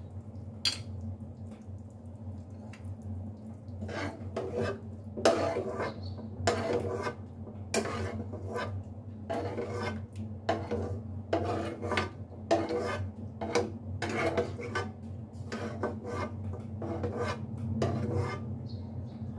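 A metal spoon repeatedly scraping and knocking against a non-stick wok as cooked chicken and pineapple pieces are scooped out into a bowl. The strokes begin about four seconds in and come roughly once a second, over a steady low hum.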